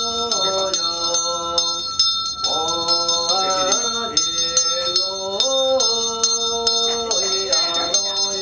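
A small hand bell rung rapidly and steadily, about four strikes a second, over a chanted melody held in long notes that step up and down in pitch.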